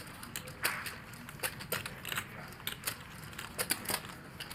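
Poker chips clicking against each other as a player handles and restacks his chips: an irregular run of sharp clicks.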